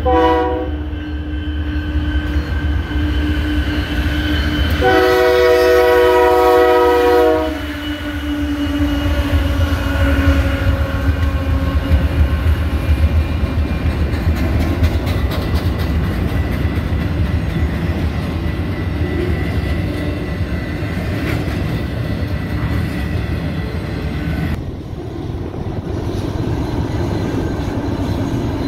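Diesel freight locomotive air horn sounding a chord of several notes in one long blast about five seconds in, lasting about two and a half seconds, with the tail of an earlier blast just at the start. Under it, the steady rumble and wheel noise of long freight trains passing.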